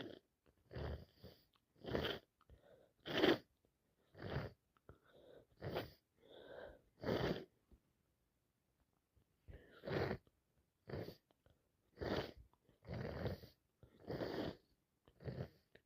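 A woman sneezing over and over, wet, snotty sneezes with sharp breaths between them. The sneezes come about one a second, with a pause of a couple of seconds midway.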